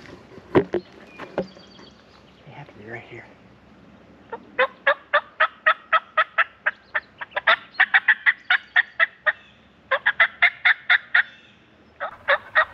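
Hunter's mouth call imitating a wild turkey: a long, even run of loud yelps at about three a second, a short pause, then two more yelps, called to strike a gobbler. Two sharp knocks sound about half a second and a second and a half in.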